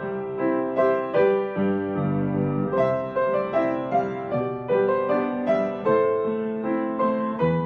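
Piano music: melody and chords played on a keyboard, a few notes struck each second.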